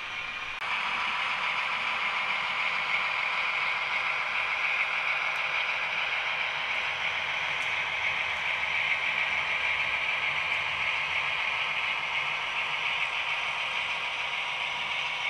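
Brawa model of the DB class 213 (V100) diesel locomotive running on a model railway, its sound decoder playing the diesel engine sound through the model's small loudspeaker together with the running noise of the model. The sound is steady and thin, and gets louder about half a second in.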